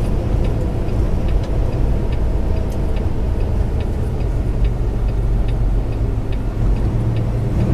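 Semi-truck's diesel engine running steadily at highway speed, heard inside the cab as a constant low drone mixed with road noise, with faint light ticks here and there.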